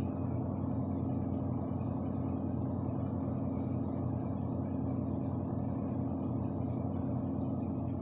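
A steady low background hum, with a rubber eraser rubbing on drawing paper beneath it.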